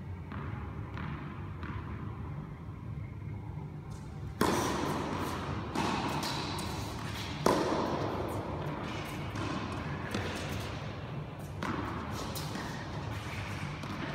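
Tennis ball being struck by a racket and bouncing on an indoor court, a handful of sharp impacts echoing around a large hall, the loudest about halfway through, over a steady low hum.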